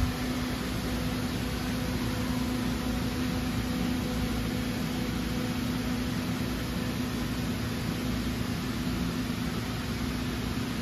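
Sharp SV-4328SX CNC vertical machining center running a test program behind its closed doors, its 12,000 rpm spindle commanded at 10,000 rpm: a steady hum over an even hiss.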